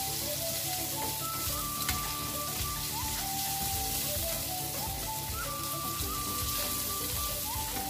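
Sliced onion, garlic and ginger sizzling in hot oil in a frying pan, stirred with a wooden spatula, under background music with a slow melody of held notes.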